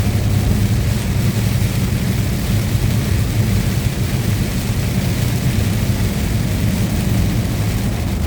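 Steady engine drone and road noise inside a moving truck's cab: a constant low hum with a hiss of tyres and wind over it.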